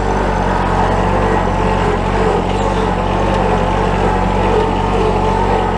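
John Deere 1023E compact tractor's three-cylinder diesel engine running steadily as the tractor drives.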